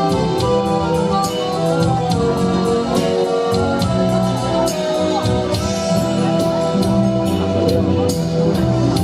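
Instrumental break of a backing track with a steady drum beat, bass and a keyboard melody, between sung verses.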